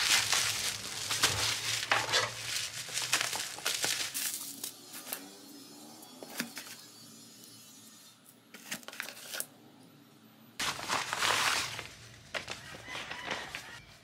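Bubble wrap and a cardboard box crinkling and rustling as a package is unpacked by hand. The handling comes in bursts, loudest in the first few seconds and again about eleven seconds in, with scattered crackles between.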